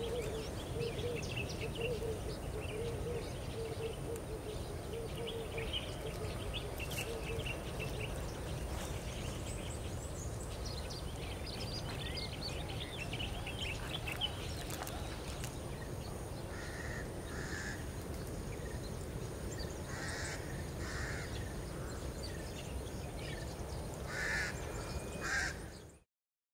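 Wild birds calling over a steady low rumble. A run of short repeated low notes and high chirps and twitters fills the first half. Harsh, caw-like calls come in clusters later, and the sound cuts off suddenly near the end.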